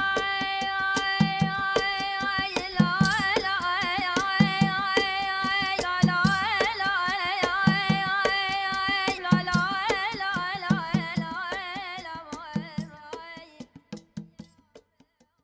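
Outro music: a held drone with a wavering melodic line over steady low hand-drum beats, fading out near the end.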